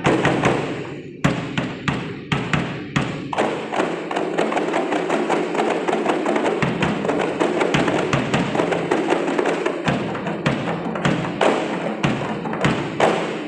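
Kompang ensemble playing: many hand-struck frame drums and a large barrel drum beating a fast interlocking rhythm. The strokes are spaced at first, thicken into continuous playing about three seconds in, and finish with a few strong accented strokes before stopping.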